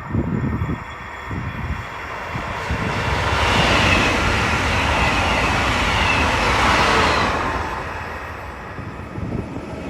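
High-speed train passing at speed: a rushing noise that builds over a few seconds, holds, then fades away.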